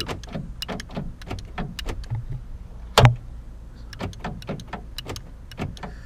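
Lexus IS300 door lock actuator being cycled from the door switch: a series of clicks, short motor buzzes and one loud clack about three seconds in. The actuator is lazy: it tries to lock but does not go all the way.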